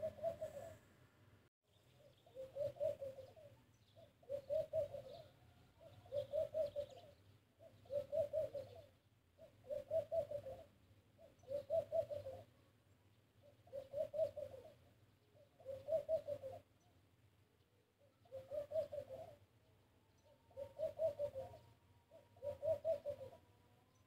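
A dove cooing: a short pulsing coo phrase repeated about every two seconds, about a dozen times.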